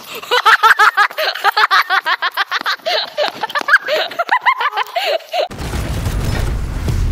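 A high-pitched voice in rapid repeated syllables, about four or five a second, each rising and falling in pitch. About five and a half seconds in it cuts off suddenly and music with a deep bass begins.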